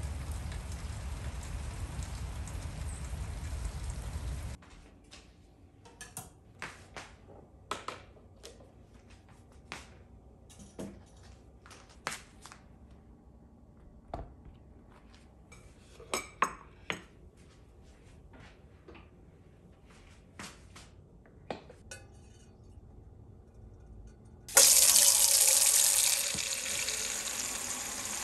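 Kitchen tap running into a sink, shut off about four and a half seconds in. A scatter of sharp clinks and knocks of dishes and utensils follows, and near the end the tap is turned on again and runs loudly.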